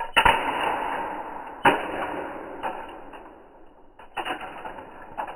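Small toy cars being handled: four sharp clacks, each followed by a rolling, rushing rattle that fades away, the first one the longest.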